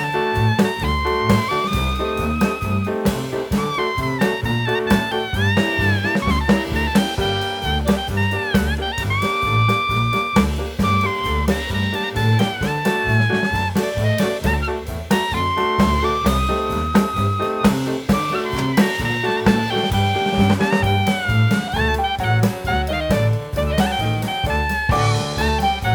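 Background jazz music: a saxophone or brass lead melody with sliding notes over a walking bass line and drum kit.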